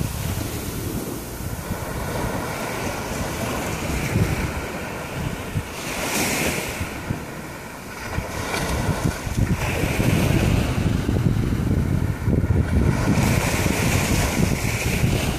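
Small waves lapping and washing up a sandy shore, the hiss of the wash swelling every few seconds, over an uneven low rumble of wind on the microphone.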